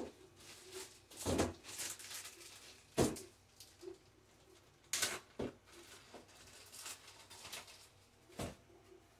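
Hands unpacking a 3D printer and its boxed parts: a handful of scattered knocks, clunks and rustles of packaging at irregular intervals.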